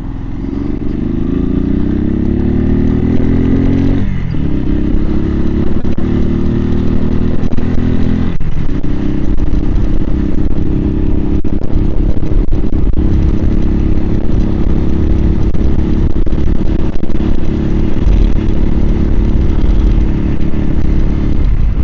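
Suzuki TU250X's single-cylinder engine pulling away, its pitch rising with engine speed, then dropping with a gear change about four seconds in and again about eight seconds in, before it settles into steady cruising, heard through a helmet-mounted mic. Near the end the pitch dips briefly once more.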